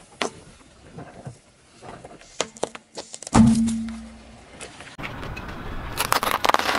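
Car tyre crushing small objects on asphalt: scattered crackles, then one sharp crack about three seconds in with a brief ringing hum that dies away. Near the end comes a quick run of crunching snaps as candy canes break under the tyre.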